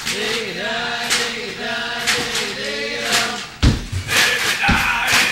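Voices singing a long, wavering, drawn-out melody, with sharp percussive hits over it. The singing breaks off a little past halfway, and two heavy low thumps follow about a second apart.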